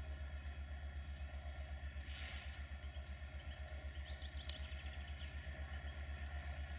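Diesel locomotive engine idling, a faint low throb that beats evenly several times a second, with a few faint bird chirps over it.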